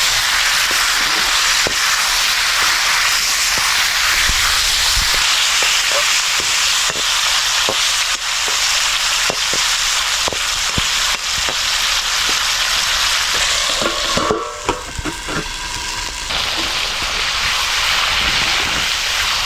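Food frying in hot oil in a pan, sizzling steadily, with scattered clicks of a utensil stirring it. About fourteen seconds in the sizzle dips briefly, then returns.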